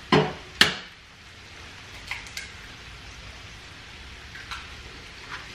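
Raw egg knocked twice against a kitchen countertop to crack it: two sharp taps about half a second apart, followed by a few faint light ticks.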